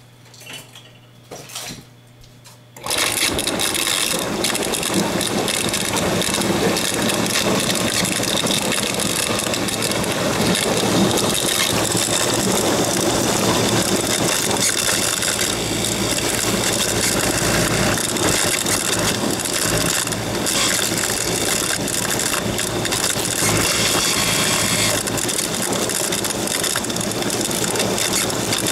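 Maytag Quiet Series 200 dishwasher: a faint low hum, then about three seconds in, just after the fill, a loud crunching, grinding rattle starts suddenly and runs on steadily. The owner suspects the motor.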